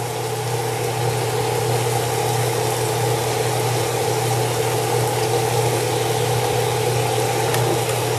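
Steaks sizzling steadily in oil in a cast-iron skillet, over a constant low hum.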